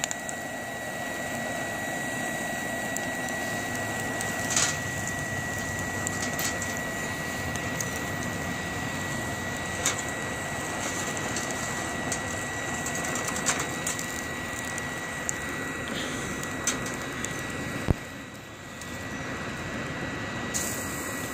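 BioLite CampStove's small electric fan running on its high setting, a steady high whine over the rush of the wood fire it blows air into. A few sharp clicks of a metal fork against the grill grate.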